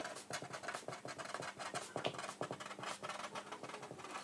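Felt-tip marker writing on paper: a quick, irregular run of short pen strokes as a line of words is written out.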